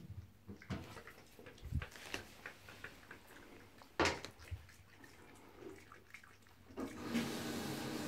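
Red fox's claws and muzzle clicking and tapping on a bathtub floor as it moves about and noses at the tub, with one sharp knock about four seconds in. Near the end a steady hiss starts.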